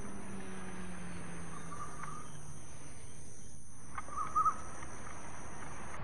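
Nature ambience: a steady high insect drone with short bird chirps about two seconds in and again just after four seconds.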